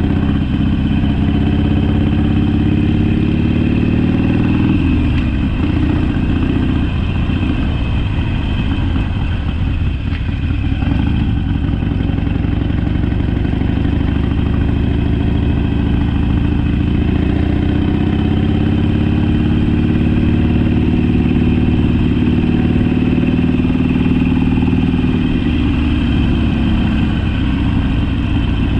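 Harley-Davidson Sportster V-twin engine under way. Its pitch rises for the first few seconds and breaks off about five seconds in, then climbs again through the middle before dropping back near the end.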